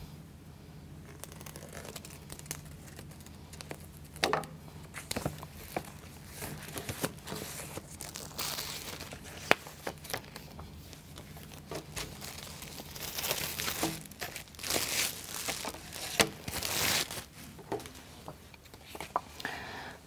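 Plastic wrapping film being cut, torn and crinkled off a pack of plywood sheets, along with paper sheets rustling as they are handled. It comes in irregular bursts of rustling, busiest near the middle and in the second half, with a few sharp clicks and taps.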